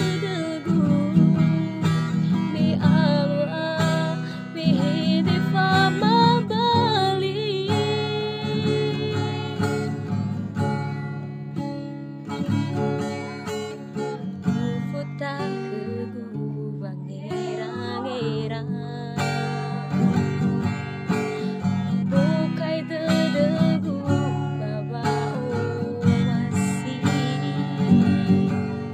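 A woman singing while accompanying herself on a strummed acoustic guitar. Her voice drops out for several seconds in the middle, leaving the guitar chords alone, then comes back.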